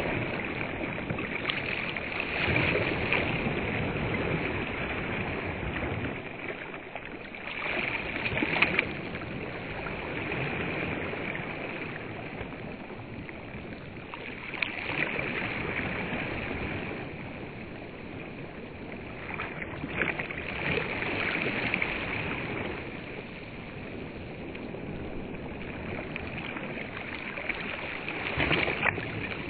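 Small waves washing onto a sandy reservoir shore, the wash swelling and fading in surges a few seconds apart.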